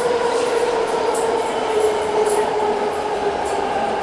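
A steady machine drone with a humming tone that sinks slowly in pitch, over a rushing noise.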